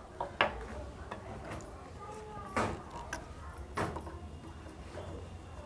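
Several light, separate metallic clicks and taps from sewing-machine parts being handled and refitted under the needle, around the bobbin case and needle plate.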